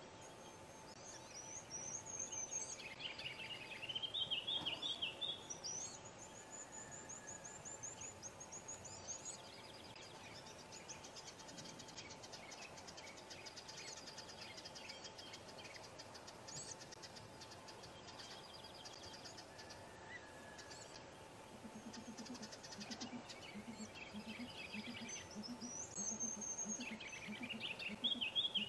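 Small songbirds singing: repeated high trills and chirping phrases, strongest in the first few seconds and again near the end. In the last few seconds a run of soft, low notes repeats underneath.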